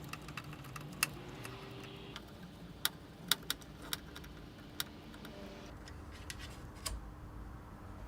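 Scattered light clicks and ticks of a screwdriver and small screws against metal, as a motherboard is screwed to the case's mounting posts. There are about eight clicks, several in quick succession a few seconds in.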